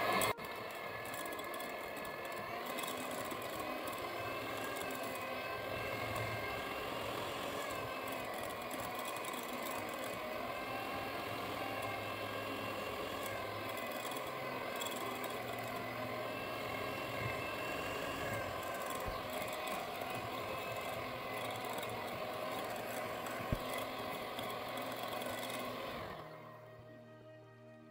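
Moulinex electric hand mixer running steadily, its beaters whipping softened butter in a glass bowl. The motor's whine wavers slightly in pitch, and the mixer stops shortly before the end.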